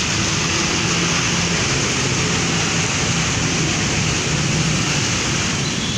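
Road traffic on a rain-wet road: a steady hiss of tyres and spray over a low engine drone.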